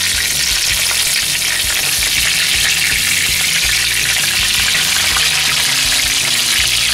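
Egg-battered zander fillets sizzling in hot oil in a cast-iron skillet as they are turned over with wooden spatulas; a steady, dense frying hiss.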